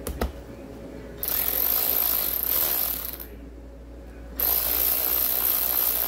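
Cordless power driver with a socket running in two bursts of about two seconds each, spinning the bolts on an e-scooter hub motor, with a brief pause between them. A short knock comes at the very start.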